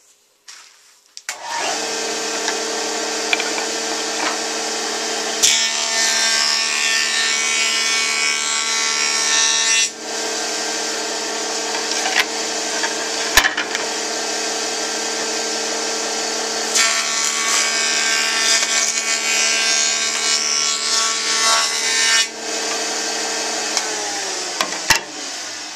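Wood jointer running: the motor starts about a second in with a steady hum, the cutterhead planes a board twice with a loud shearing rasp, and near the end the machine is switched off and winds down.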